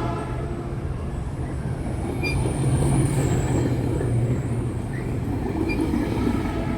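Metrolink commuter train moving at the station, a steady low rumble, with a faint high-pitched squeal from about two and a half to four seconds in.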